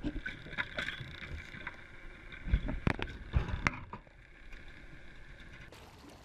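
Boat engine running with a steady whine over water noise, with several heavy thuds in quick succession around the middle.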